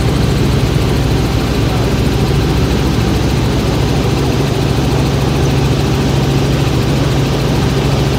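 Helicopter in flight, heard from inside the cabin: the engine and rotor make a steady, loud low drone with a constant rushing noise over it.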